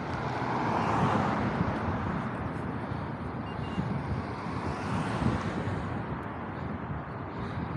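Wind rushing over a small cap-mounted action camera's microphone while cycling along a road, with road traffic going by.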